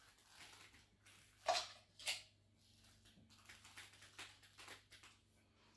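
Light knocks and taps of terracotta flower pots being handled as a treat is hidden, with two louder knocks about a second and a half and two seconds in, the first ringing briefly, then a few fainter ticks.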